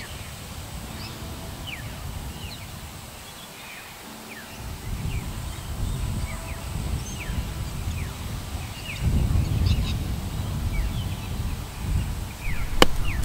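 Birds calling with many short, falling chirps, over a low rumble of wind on the microphone that comes in about four seconds in; a single sharp click near the end.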